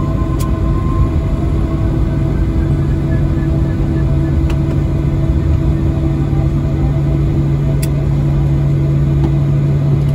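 Cabin noise of a Boeing 737-800 taxiing after landing: its CFM56-7B engines running at idle make a steady low hum over a constant rumble.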